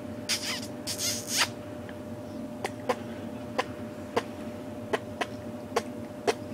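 A woman making soft lip-smacking kisses close to the microphone: about eight short, sharp smacks, irregularly spaced, after a breathy rustle in the first second and a half. A faint steady hum runs underneath.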